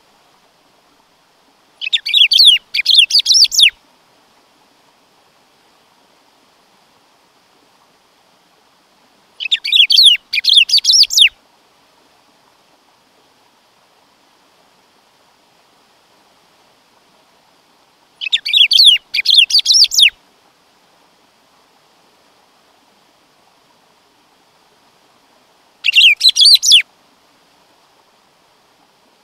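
Black-throated saltator (bico-de-pimenta) singing: four short phrases of quick, bright, warbled notes, about one every eight seconds, over a faint steady hiss.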